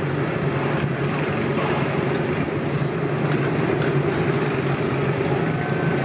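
Walt Disney World PeopleMover train, driven by linear induction motors in its track, running with a steady low hum and rumble.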